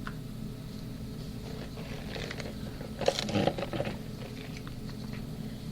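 Computer keyboard typing: scattered key clicks, busiest about three seconds in, over a steady low hum.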